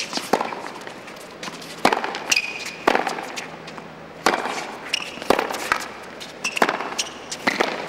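A tennis rally at court level: sharp pops of the ball struck by rackets and bouncing on the hard court, about one every second, with short shoe squeaks between some of them.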